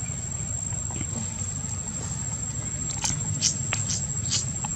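Forest ambience: a steady high-pitched insect drone over a low rumble, with a handful of short, sharp high chirps about three to four and a half seconds in.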